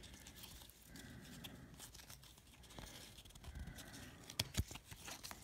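1998 Bowman baseball cards sliding and flicking against each other as a stack is thumbed through by hand: faint rustling with scattered light clicks, and two sharper snaps about four and a half seconds in.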